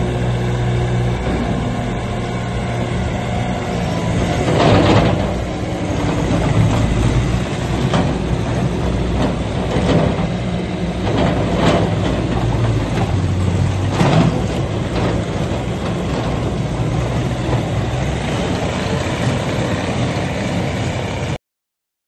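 Bobcat T590 tracked skid steer's diesel engine running steadily while the machine drives and turns, with several short, sharp louder noises about five seconds in and again between ten and fourteen seconds. The sound cuts off suddenly near the end.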